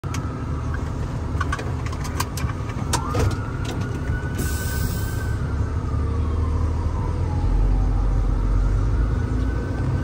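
Vehicle engine running, heard from inside the cab, with a handful of clicks and knocks in the first few seconds. From about three seconds in, an emergency vehicle siren wails: one slow rise and fall, then rising again near the end.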